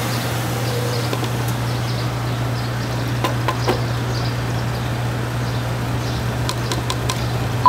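Steady low hum over a noisy outdoor background, with faint high chirps and a few light clicks. A short, loud high-pitched beep comes right at the end.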